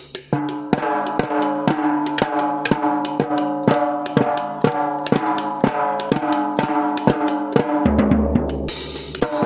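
Drums played in a steady run of strikes, the drumheads leaving a sustained pitched ring under the hits. About eight seconds in come quick low bass-drum beats, then a bright crashing wash near the end.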